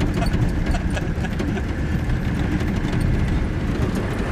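Mercedes G-class off-roader's engine running as it drives over a rough railway track bed, with a steady low rumble and many irregular knocks and jolts from the wheels running over the sleepers.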